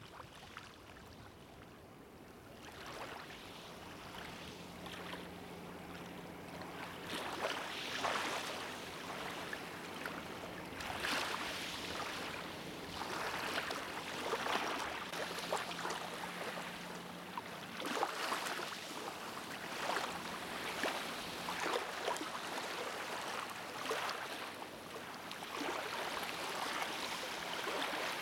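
Small lake waves lapping on a pebbly shore, fading in over the first few seconds, then a steady wash with a soft surge every second or two.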